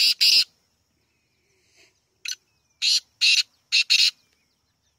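Black francolin calling: short, harsh, grating notes, two at the start and a run of five more from about two seconds in.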